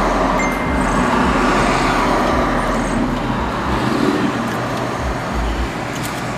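Steady vehicle and road-traffic noise heard from inside a car: an even hiss and low rumble with no breaks.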